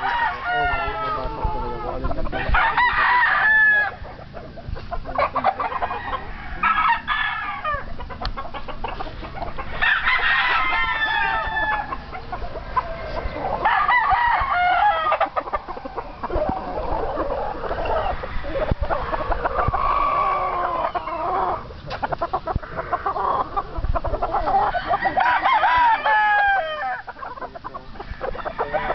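Young gamefowl roosters (bullstags) crowing again and again, a crow every few seconds, some overlapping, with clucking between crows.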